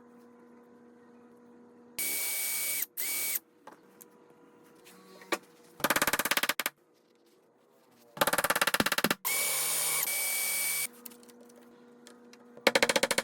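Power tools working wood in short bursts: a drill running with a steady whine for about a second at a time, alternating with bursts of rapid rattling hammering.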